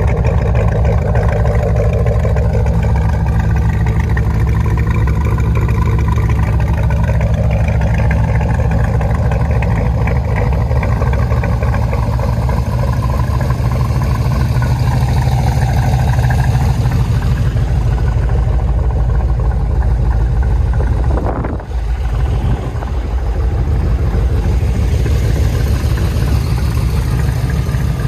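A 1965 Corvette Sting Ray's 327 cu in, 365 hp small-block V8 running steadily at idle through its factory off-road exhaust, a deep, even exhaust note. The sound dips briefly once, about three-quarters of the way through.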